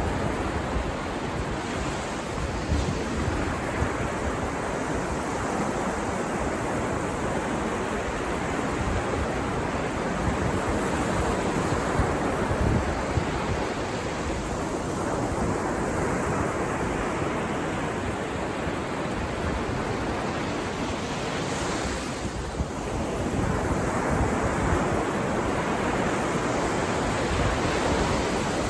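Ocean surf washing onto a beach, a steady rush of breaking waves that swells and eases slowly, with some wind on the microphone.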